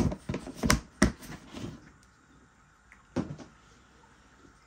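Lid of a feeder-insect container being pressed shut: a few sharp clicks and knocks in the first second or so, the loudest right at the start, then one more knock about three seconds in.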